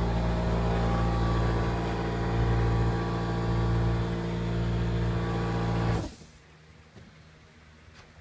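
A motor or engine running steadily with a low hum, shutting off abruptly about six seconds in; a few faint ticks follow.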